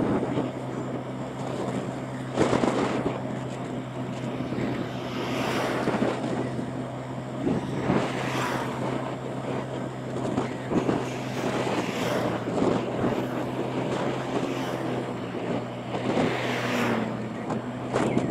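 Motorbike cruising at a steady speed: a steady engine hum under heavy wind noise on the microphone, which swells in gusts every few seconds.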